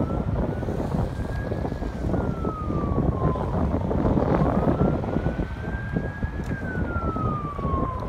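Emergency vehicle siren wailing, rising and falling slowly in pitch through two long cycles, over a steady low rushing noise.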